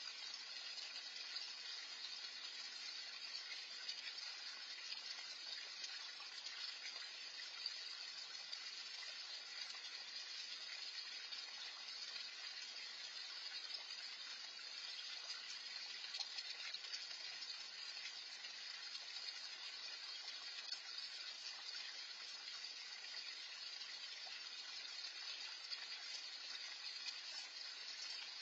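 Small garden pond fountain splashing steadily: an even, unbroken hiss of running water.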